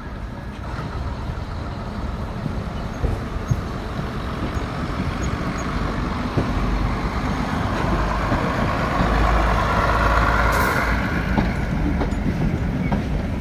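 Class 108 diesel multiple unit running along the platform, its underfloor diesel engines getting louder as it draws alongside, loudest about two thirds through.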